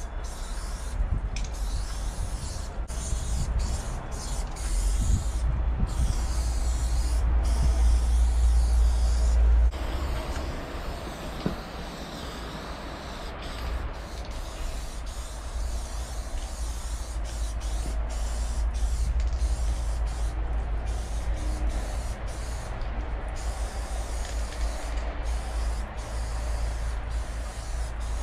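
Aerosol spray-paint can hissing in spurts, stopping and starting every second or two, over a steady low rumble.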